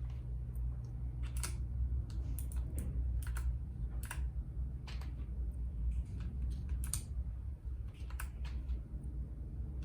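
Keys of a RAKK Lam Ang Pro mechanical keyboard with bronze switches being pressed one at a time, sharp separate clicks at uneven intervals, with a steady low hum beneath.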